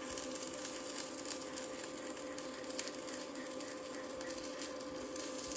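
Stick welding on a steel fence: the arc crackles and sizzles steadily, with a faint steady hum underneath.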